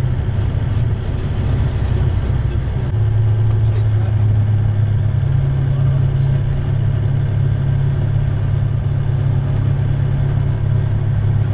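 Remos GX light aircraft's Rotax 912 four-cylinder engine and propeller heard from inside the cockpit, running steadily as a low drone, getting a little louder about three seconds in.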